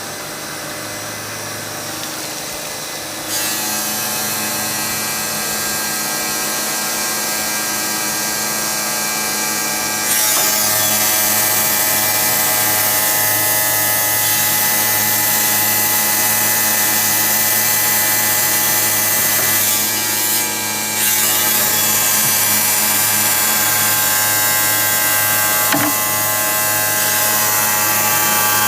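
Portable electric tile-cutting machine running and cutting ceramic tile, a steady whine over grinding noise. It gets louder about three seconds in and again about ten seconds in, with a brief dip near twenty seconds.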